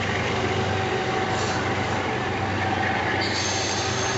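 Amtrak passenger train's stainless-steel cars rolling past and away on the rails, a steady rumble of wheels on track. About three seconds in, a high, thin squeal from the wheels on the rails sets in.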